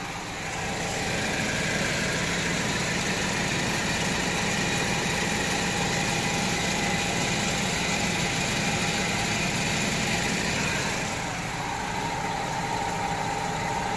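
Engine-driven, jacked-up right front wheel of a 2010 Chevy Malibu spinning in the air with the engine running. The hub gives a steady noise that the owner suspects is a worn wheel bearing. The sound eases slightly about eleven seconds in and a steady higher whine comes in.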